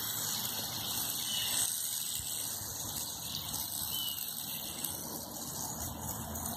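Fidget spinner spinning between the fingers, its bearing giving a steady high-pitched whirring hiss.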